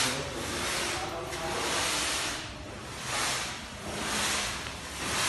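Handheld sanitiser fogger spraying a fine mist: a steady hiss that swells and fades about once a second.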